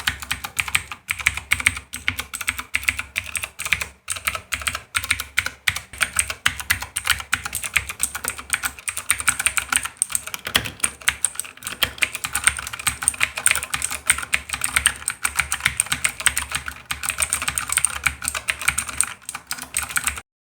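Fast, continuous typing on a T-Dagger Verde 60% mechanical keyboard with Outemu Blue clicky switches, each keystroke a sharp click ("cetak-cetok"), stopping shortly before the end.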